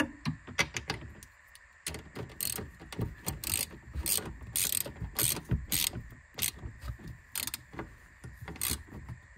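Socket ratchet clicking in irregular short bursts while the rear strut top-mount nuts are snugged down.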